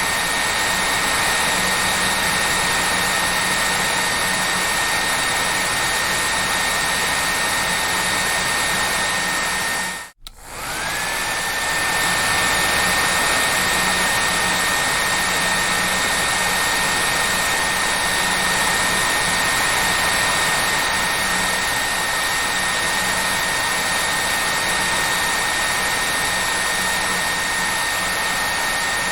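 Hair dryer running steadily, a rushing blow with a high motor whine. About ten seconds in it cuts out for a moment, then comes back, its whine climbing back up to pitch.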